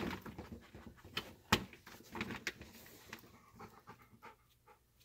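A dog panting, with a few light knocks and one sharper knock about a second and a half in; it goes quiet near the end.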